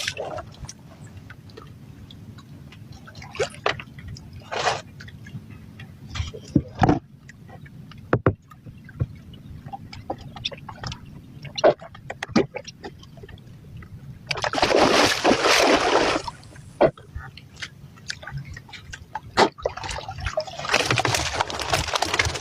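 Water sloshing and splashing, with scattered short knocks and splashes, and two longer bursts of splashing about two-thirds of the way in and again near the end.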